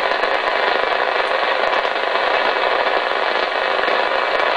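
Steady static hiss from an HR2510 ten-metre transceiver's speaker: band noise with no voice coming through on the frequency.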